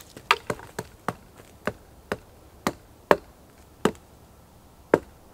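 An axe chopping into a thin wooden pole: about nine sharp chops, spaced unevenly a half second to a second apart.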